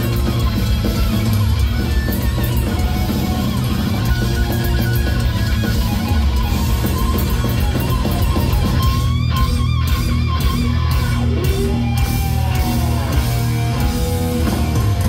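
Live heavy metal played loud through a concert PA: distorted electric guitars over bass and drums. About halfway through a lead guitar line wavers and bends sharply in pitch.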